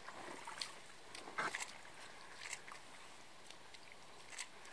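Brown bear's paws splashing and squelching in shallow water on a wet mud flat: faint, scattered wet splashes, the loudest cluster about a second and a half in, over a steady soft hiss.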